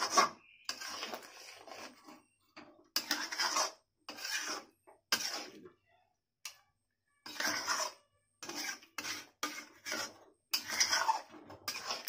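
Metal spoon scraping and stirring around the inside of a steel kadai of chicken gravy, about a dozen short rasping strokes with brief pauses between them, as the hot water just poured in is mixed through.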